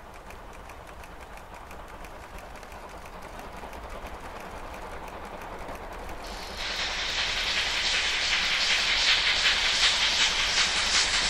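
Steam locomotive D51 200 (a JNR Class D51 2-8-2) working hard under steam, its quick, even exhaust beats and hiss growing steadily louder. About halfway through the sound turns much louder and brighter.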